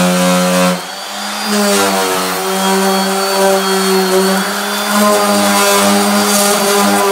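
Dual-action orbital sander running steadily against the aluminum of a snowmobile tunnel, sanding out scuffs before polishing. Its sound drops briefly about a second in, then runs on at a steady hum.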